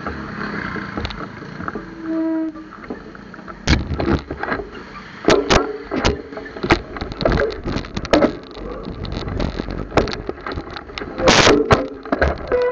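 Street traffic and road noise recorded from a bicycle on the move: a steady rumble, a short beep about two seconds in, then frequent sharp knocks and rattles from about four seconds on.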